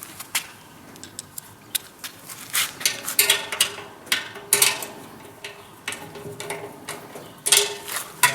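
Irregular metallic clicks, clinks and knocks of bolts, nuts and tools being handled while assembling a Vikhr-2000 grain-heap aeration fan; some strikes ring briefly.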